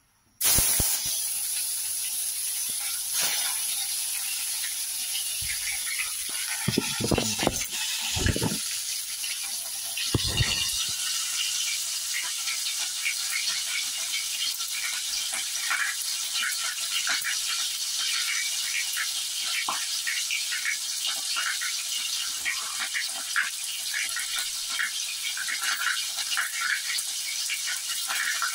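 Pork frying in hot oil in a wok: a steady sizzle with many small crackling pops that starts suddenly. A few low knocks come between about 6 and 11 seconds in.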